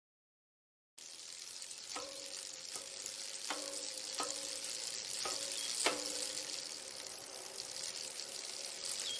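Water spraying from a rain shower head: an even hiss that starts suddenly about a second in.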